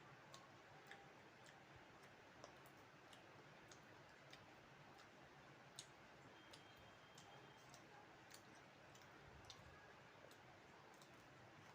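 Near silence: faint steady hiss with scattered, irregular soft clicks from quiet eating, mouth and chewing sounds.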